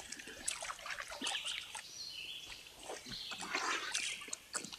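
A small dog, a Bichon Frise, wading and splashing through a shallow, stony creek: a run of short, irregular splashes over the light trickle of the stream.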